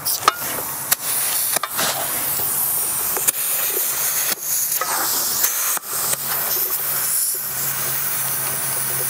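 Compressed air hissing from a portable air tank's hose chuck held on an old tire's valve stem, in long spurts broken every second or so by short clicks and gaps as the chuck is reseated. Much of the air is escaping out the rotted, leaking valve stem rather than filling the tire.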